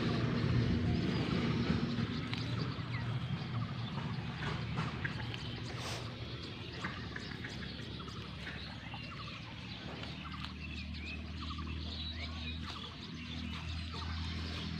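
Small birds chirping over a steady low hum, with a single click about halfway through.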